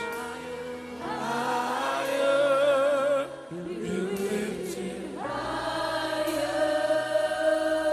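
A worship choir singing long held chords with vibrato over musical accompaniment. The sound drops off briefly about three seconds in, then a new chord swells in a little after five seconds and is held.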